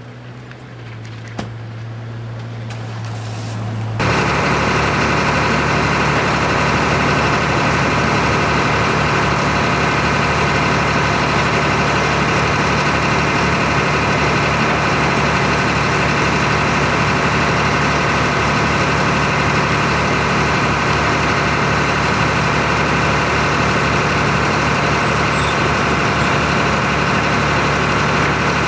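Heavy engine running steadily with a low hum. About four seconds in it jumps abruptly to a much louder, constant machine drone that holds without change.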